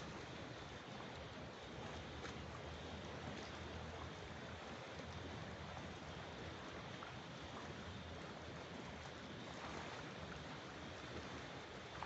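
Faint, steady wash of water, with soft lapping and light splashing from a swimmer in the pool.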